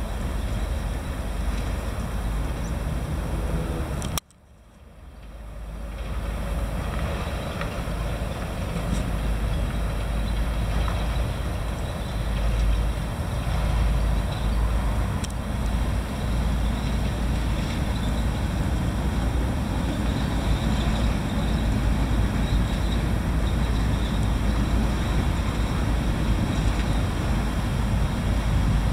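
Steady low rumbling background noise. About four seconds in there is a sharp click, after which the sound drops out almost completely and fades back up over about two seconds.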